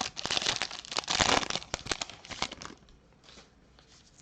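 Foil wrapper of a 2020 Bowman Sterling baseball card pack being torn open and crinkled by hand, a dense crackle for the first two and a half seconds or so, then only faint handling.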